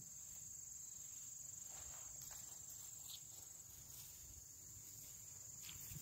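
Faint, steady, high-pitched chorus of insects such as crickets, over a low outdoor rumble.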